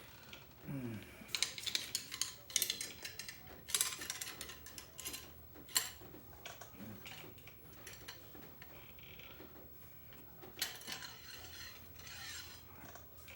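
Cleaning rod and patch being worked in a CVA Wolf muzzleloader's barrel: clusters of scraping and rattling strokes with quieter gaps between them.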